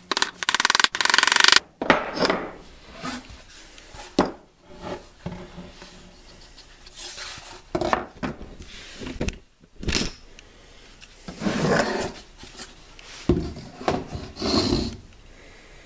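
Hammer tapping a small picture hanger's nail into the particle-board back of a wooden plaque, a quick run of light strikes in the first second and a half. Then scattered wooden knocks and rubbing as the plaque is handled and turned over.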